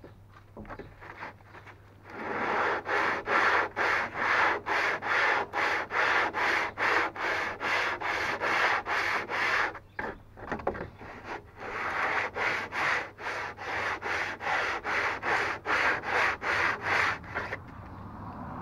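A hand tool is stroked back and forth across wood inside a notch, giving rhythmic rasping strokes about two a second. It is smoothing the notch cut for a stringer. There are two long runs of strokes with a short pause between them, about a third of the way through.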